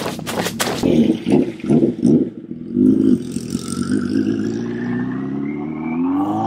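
Motorcycle engine with freshly re-jetted carburettors revving as the bike pulls away on a test run, its note rising steadily from about three seconds in as it accelerates. A few sharp knocks near the start.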